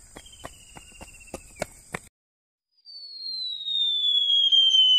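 A row of sharp clicks, about three a second, over a steady high hiss, stopping about two seconds in. After a short break comes a long falling whistle with a rising tone beneath it, like a cartoon-style sound effect.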